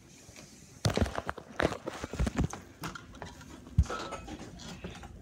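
A run of irregular thumps and knocks, starting about a second in, with the loudest near the start and another about halfway through.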